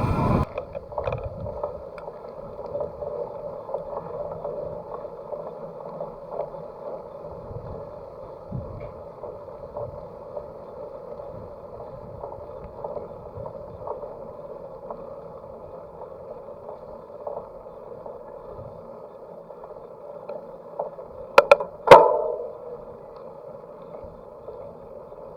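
Steady, muffled rolling noise of a bicycle being ridden, with faint scattered ticks and two sharp knocks in quick succession near the end.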